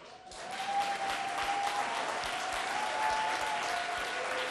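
Audience applause, building up about a third of a second in and then holding steady, with a thin held tone running through it.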